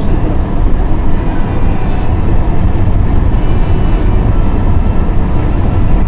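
Steady low rumble of a car's engine and tyres on a snowy road, heard from inside the cabin while driving.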